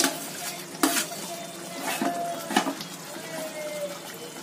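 Steel ladle knocking against a kadhai three times as pieces of boiled gram-flour dough are tipped into simmering gravy, over a steady low hiss.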